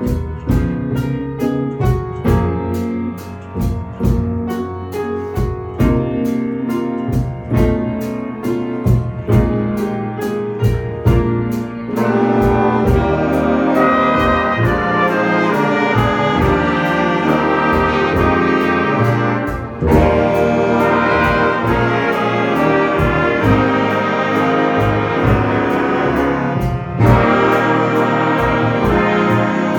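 Middle school jazz band playing a slow tune. A lighter passage over a steady beat gives way about twelve seconds in to the full band with trumpets and trombones, louder, with brief breaks about twenty and twenty-seven seconds in.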